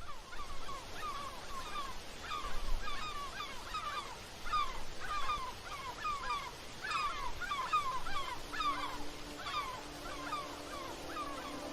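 A flock of birds calling, many short, slurred calls overlapping several times a second over a faint rushing background. About two-thirds of the way in, a low held note of soft music comes in under them.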